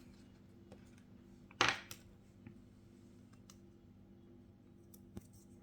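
Faint scattered clicks and taps of hand tools and parts during a phone screen repair, with one louder brief noise about one and a half seconds in; a faint steady hum underneath.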